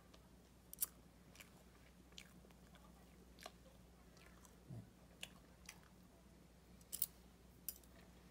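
Faint close-up eating sounds: a fork clicking against a plastic cake tray and soft chewing of cream cake, in scattered sharp ticks, loudest about a second in and about seven seconds in.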